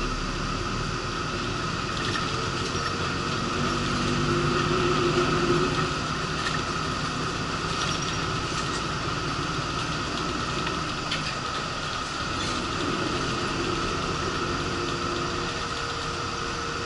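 Inside a moving bus: steady engine and road noise with a low hum that swells and fades, and occasional small clicks and rattles from the fittings.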